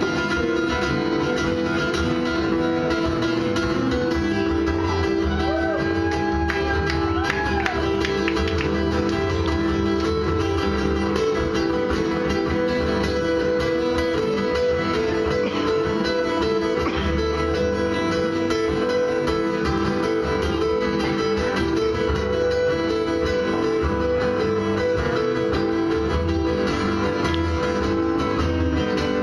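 Two acoustic guitars playing an instrumental passage together, a steady strummed rhythm under a picked lead line, with bent notes sliding in pitch several seconds in.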